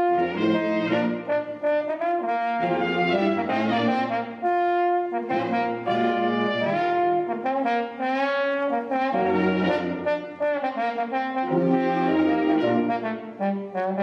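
Brass ensemble of trumpets, horns and low brass playing a piece in several-part harmony, in phrases of held chords with short breaks between them.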